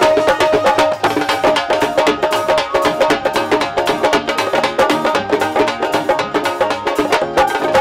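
Live Punjabi folk music without singing: a keyboard melody of held notes over busy, steady hand-drum percussion.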